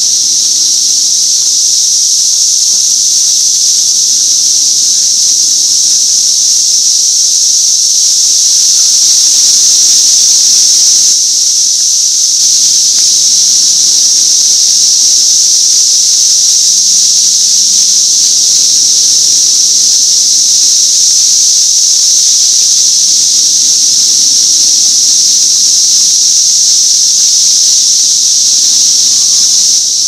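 Massed chorus of 13-year periodical cicadas, a steady high-pitched drone, really loud, with no breaks.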